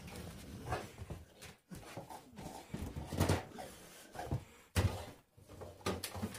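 Scattered thumps and knocks of a Rottweiler moving about and rearing up against a refrigerator in a small room.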